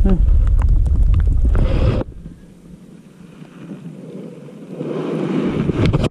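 Wind buffeting the microphone: a heavy low rumble with scattered light ticks that cuts off abruptly about two seconds in. After it comes a quieter muffled rustling noise that builds again near the end.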